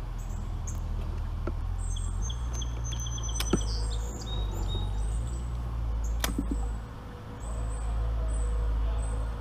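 Small birds chirping and trilling in short high phrases over a steady low rumble. There are two sharp clicks, about three and a half seconds in and again about six seconds in.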